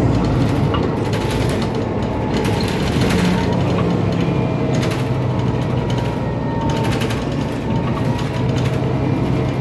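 Mercedes-Benz Citaro O530 bus's OM906LA turbo diesel running steadily, with a faint held whine over the engine hum; the turbo is described as faulty. A loose, noisy part rattles in repeated clusters of clicks over it.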